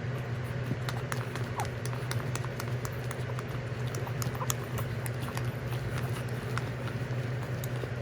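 Jack Russell Pomeranian puppies moving about, their claws clicking and pattering in quick, irregular taps, with a few short high squeaks, over a steady low hum.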